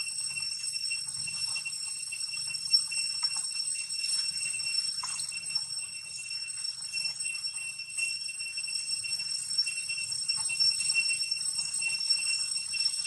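A steady high-pitched ringing drone, with faint scattered rustles and clicks.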